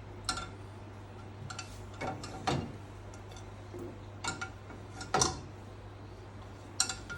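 Plates clinking and knocking as they are set into a dishwasher rack: scattered sharp clinks with a short ring, several seconds apart at first and bunching near the end.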